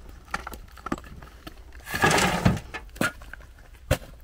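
Hand hammer tapping on broken rock, a few sharp clinks, and a steel shovel scraping into a pile of loose stone in one longer gritty scrape about two seconds in, the loudest sound.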